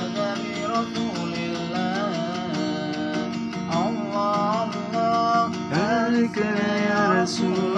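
A man singing a sholawat (Islamic devotional song) in long held notes that slide into each phrase, over a strummed acoustic guitar.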